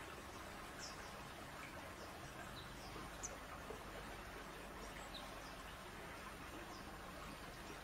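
Low steady background hiss with scattered short, high bird chirps, the loudest about three seconds in.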